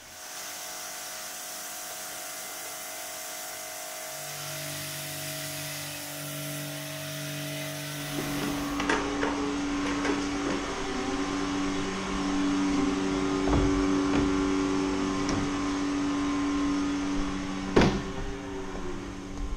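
Milking machine vacuum system running steadily, a hiss with a low hum, with a few knocks of the milking equipment being handled, the loudest near the end.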